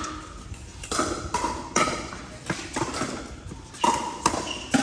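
Pickleball paddles hitting a hard plastic pickleball during a rally. There are about half a dozen sharp, hollow pocks at uneven intervals, each with a brief ring.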